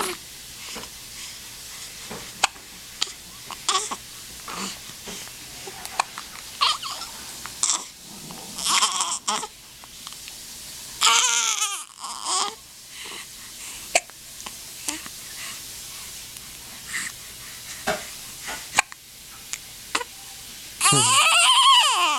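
An infant hiccuping over and over, a short sharp hiccup every second or two, with a few brief fussy sounds between. Near the end the baby breaks into a loud cry that wavers in pitch.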